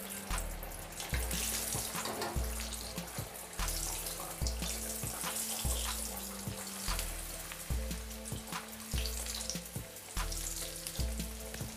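Green-pea kachoris deep-frying in hot oil: steady sizzling with many small pops. Background music with a repeating bass beat runs underneath.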